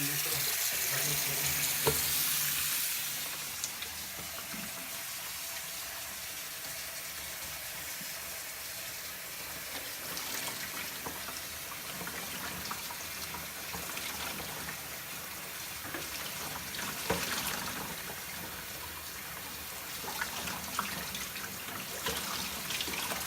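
Water running into a washbasin and draining through its opened pop-up drain, a steady splashing hiss that is loudest in the first few seconds, with a few small knocks.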